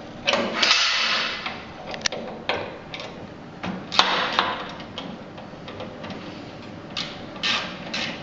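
Metal fireplace door and frame being worked by hand: scraping and clanking of metal parts, with a long scrape near the start, a sharp knock and scrape about four seconds in, and more scraping near the end.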